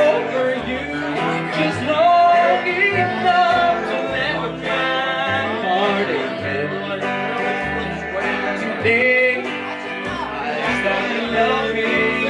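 Live country band playing, with electric guitar and an upright double bass whose notes step along underneath.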